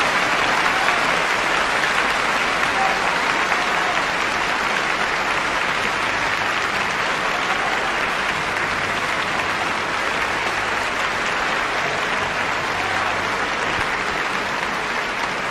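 Concert hall audience applauding: a long, steady round of dense clapping that eases slightly toward the end.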